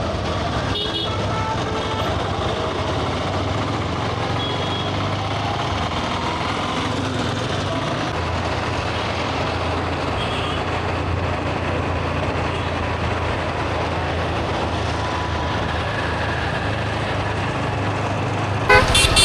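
Traffic jam on a busy road: vehicle engines running with horns honking now and then, and a louder burst of noise near the end.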